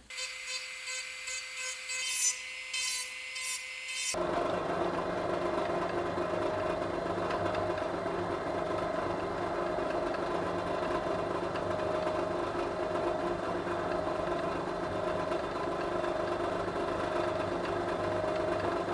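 A small power tool running in the workshop. About four seconds in, a louder, steady motor hum takes over.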